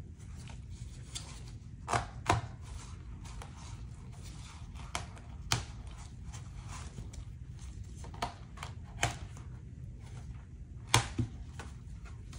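Gloved hands handling and pulling at a fabric-covered homemade armor plate: rustling broken by irregular sharp clicks and snaps, the loudest a pair about two seconds in and one near eleven seconds. A steady low hum runs underneath.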